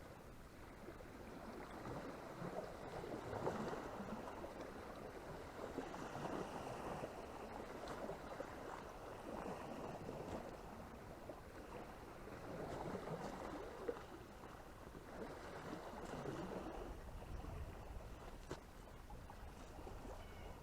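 Water lapping at the shore, swelling and falling back every two to three seconds.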